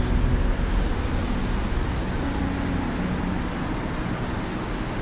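Steady outdoor background rumble of distant traffic and wind, with a faint low hum running underneath.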